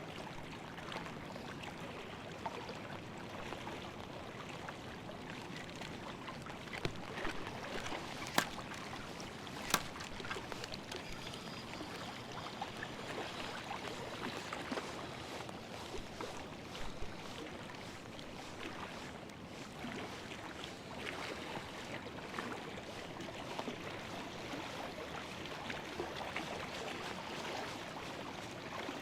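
Steady wash of water sound, with scattered small ticks and two sharper clicks about eight and ten seconds in.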